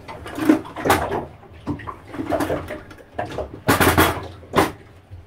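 Metal cutlery clinking in a wooden drawer tray as a hand sorts through it, then a kitchen drawer being shut and another pulled open, giving several sharp clacks, most of them close together near the end.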